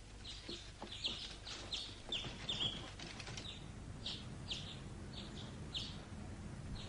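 Small birds chirping: a string of short, high cheeps, about two a second.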